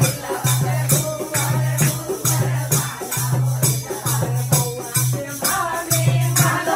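Group of women singing a sohar, a Bhojpuri–Hindi folk song for a child's birth, with clapping and percussion keeping a steady beat.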